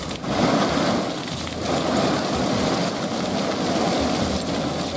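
Gravel and oil palm fruit bunches sliding and pouring out of a tipped dump truck bed onto the road, a continuous rushing clatter, with the truck's engine running underneath.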